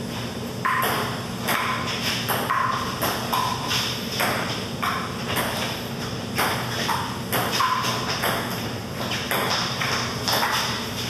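Table tennis ball clicking off paddles and the table in a continuous rally, about two hits a second at uneven spacing, some hits giving a short ringing ping.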